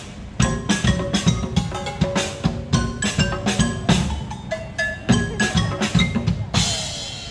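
Music with a steady drum beat and pitched mallet-percussion notes, and a cymbal-like swell near the end.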